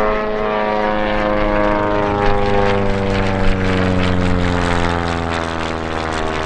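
Engine and pusher propeller of a Rutan canard homebuilt flying past, a steady drone whose pitch slides gradually lower as it goes by.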